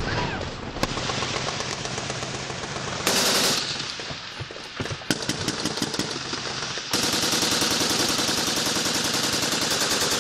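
Machine-gun fire: a sharp bang just under a second in, a short loud burst about three seconds in, then scattered shots before a long sustained burst of rapid automatic fire from about seven seconds in.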